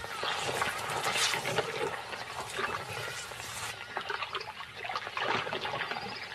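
Muddy water sloshing and splashing unevenly, with many small wet crackles.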